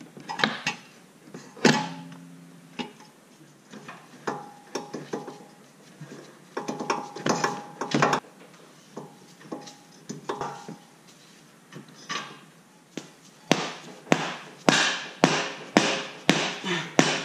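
Metal clunks and clinks as a CV axle is worked into the splines of a Nissan Versa Note's CVT transmission, then near the end a steady run of hammer blows, about two a second, driving the axle in until it bottoms out and seats.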